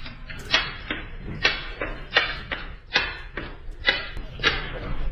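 A series of irregular knocks or taps, about two to three a second.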